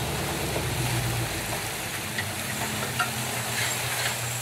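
Toyota FJ Cruiser's 4.0 L V6 running low and steady as the truck creeps through a flooded mud rut, under a steady hiss of water and mud, with a few faint ticks.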